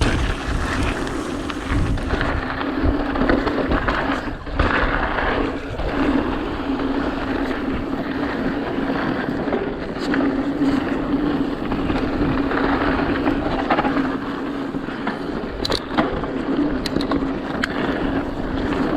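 Mountain bike rolling fast down a loose gravel dirt trail: the tyres crunch and rattle over the dirt, with a steady buzz and scattered sharp knocks as the bike hits bumps, and wind on the microphone.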